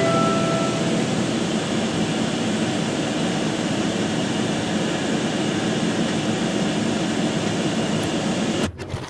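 A steady, even rushing noise, like the drone of a moving vehicle or plane, that cuts off suddenly near the end.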